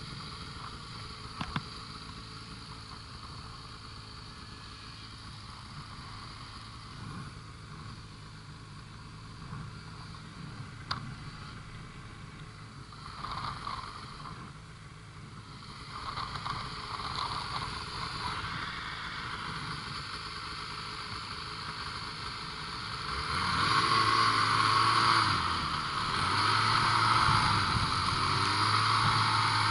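Ski-Doo snowmobile's two-stroke engine idling steadily. About two-thirds of the way in, a snowmobile engine grows louder, its pitch rising and falling as it is revved.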